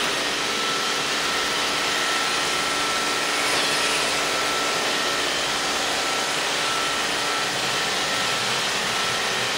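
iRobot Roomba robot vacuum running steadily as it cleans a rug: a constant whirring hiss of its motor and brushes with a faint steady whine.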